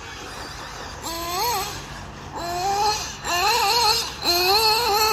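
1/8-scale RC buggy motor revving up and backing off again and again, a whine that rises in pitch, holds and drops, several times in quick succession.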